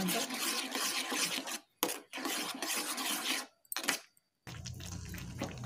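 Steel spoon scraping and stirring thick, bubbling guava halwa paste in a pan, a steady rasping rub against the pan. The sound cuts out briefly twice, and a low hum comes in near the end.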